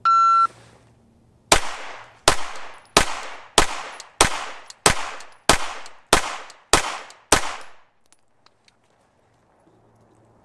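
A shot timer's start beep, then a Glock 19 Gen 3 9mm pistol fires ten shots at an even pace, about one and a half shots a second, from low ready.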